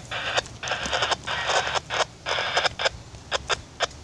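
Railroad scanner radio crackling with choppy bursts of static that cut in and out several times a second.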